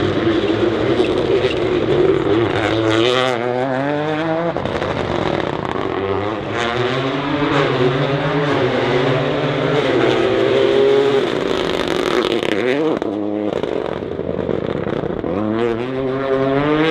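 Rally car engine running hard at high revs, its pitch climbing and dropping several times as the car accelerates and comes off the throttle.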